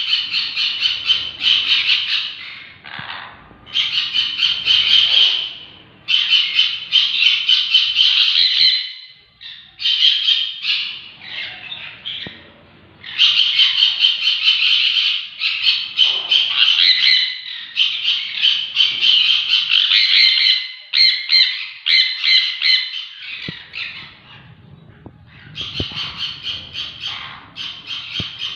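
Sun conure giving loud, shrill, harsh screeching calls in runs of rapid repeated notes, each run lasting a few seconds with short breaks between.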